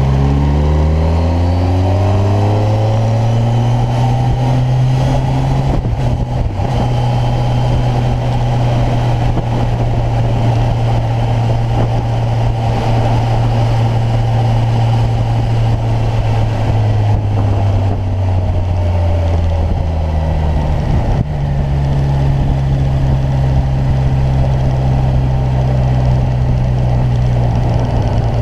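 Kawasaki Ninja 1000's inline-four engine under way. The revs climb for the first few seconds, there is a short break in the sound about six seconds in, and it then runs steadily over continuous wind and road noise. About two-thirds of the way through the revs sag, with another brief break, before the engine settles back into steady running.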